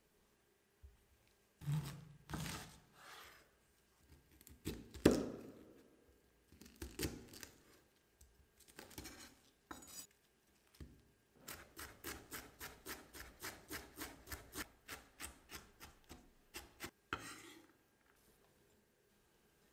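Chef's knife cutting cabbage on a wooden cutting board: a few separate slicing strokes, then from about halfway through a steady run of chopping at about four strokes a second that stops near the end.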